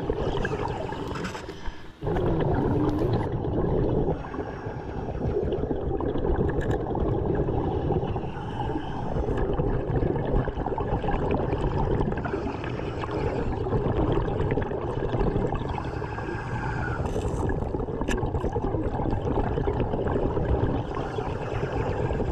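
Underwater sound of a diver at work: bubbles gurgling over a steady low rumble of water noise.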